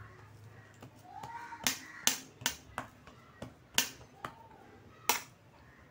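Spatula tapping against a steel plate while pressing and flattening a soft lentil-paste slab: a scattering of sharp clicks, about six clear ones over a few seconds.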